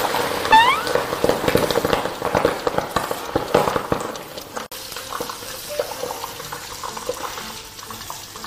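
Hot oil in a wok spitting and crackling hard as soy-sauce-coated meat pieces deep-fry, the wet marinade making the oil spatter; the popping is densest in the first half and thins out towards the end. A short rising whistle-like tone sounds about half a second in.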